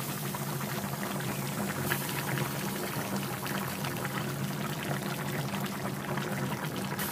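Bottle gourd and rohu fish curry boiling in a pan: a steady bubbling made of many small pops, over a steady low hum.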